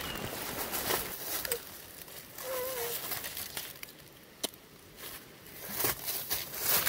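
Footsteps crunching through dry fallen leaves and forest litter, in uneven crackling steps that are louder at the start and again near the end.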